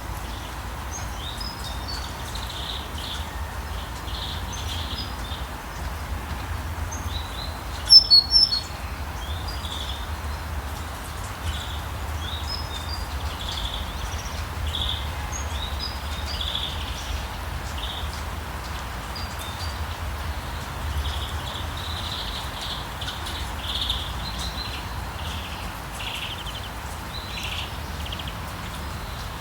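Songbirds chirping again and again over a steady hiss of rain on a street, with a low rumble underneath. A loud burst of sharp chirps comes about eight seconds in.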